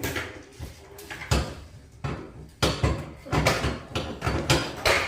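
Hard vacuum cleaner attachments clattering and knocking together as they are handled and put away: an irregular run of sharp knocks.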